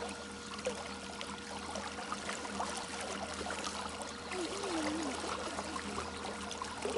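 Water trickling and splashing lightly, with scattered small clicks and a faint steady hum underneath.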